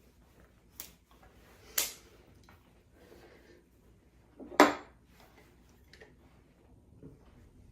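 Kitchen items being handled and set down: a few separate knocks and clatters of dishes or utensils, the loudest about four and a half seconds in, with a short ringing tail.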